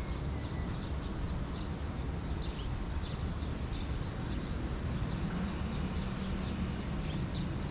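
Outdoor background of a steady low rumble, with small birds chirping briefly now and then.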